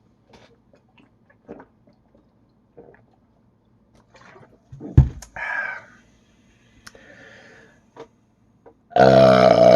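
A man's loud, long burp from drinking carbonated soda starts about nine seconds in, low-pitched, and carries on past the end. Before it there are faint small sounds, and about halfway through a sharp thump followed by a short, briefer noise.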